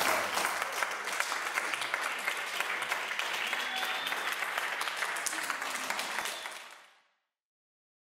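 Audience applauding, fading out near the end.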